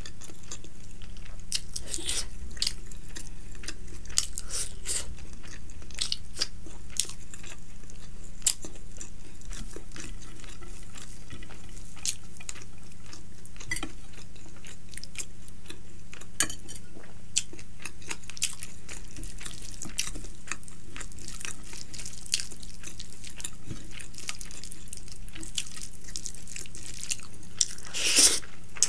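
Close-miked eating by hand: wet chewing, lip smacks and small clicks as rice, fried fish and curry are mixed and eaten, with a louder wet burst near the end as a large handful of rice goes into the mouth. A steady low hum sits underneath.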